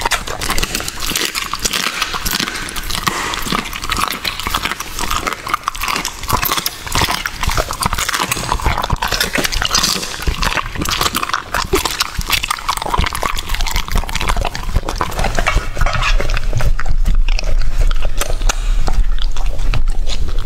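A large dog chewing and licking up a raw meal of meat, cartilage and bone from a stainless steel divided tray: close-up wet smacking, crunching and tongue-on-metal licking, one sharp click after another. It gets louder near the end.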